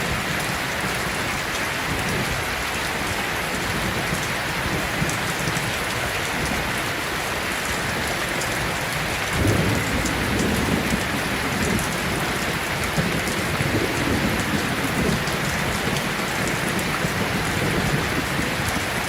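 Steady rain falling, an even hiss throughout. About halfway through, a low rumble of thunder starts and rolls on, swelling a little, to the end.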